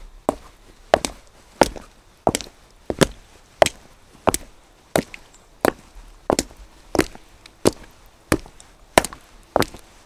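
Footsteps on wet cobblestones, walking at a steady pace of about three steps every two seconds. Each step is a sharp tap.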